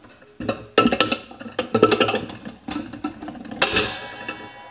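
Metal cutting tool clinking and scraping against a stainless steel malt pipe and its perforated filter plate while a cable tie inside it is cut. About three and a half seconds in comes a sharp snap with metallic ringing.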